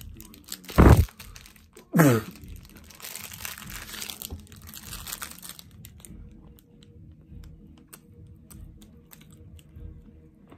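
Plastic snack-cake wrapper crinkling and rustling as it is handled, then quieter chewing with small scattered clicks. About one and two seconds in, two loud, short voice sounds falling in pitch.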